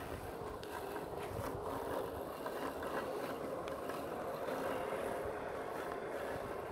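Gardena Smart Sileno Plus robotic lawnmower running as it drives across the grass close by: a steady electric hum with a faint whine.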